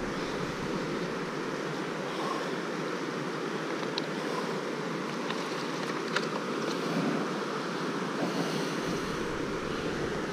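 Steady rush of river water flowing over a weir and rapids. Wind rumbles on the microphone from about nine seconds in.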